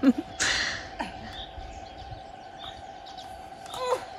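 Small birds chirping in the background. There is a short rush of noise about half a second in, and a brief vocal sound near the end.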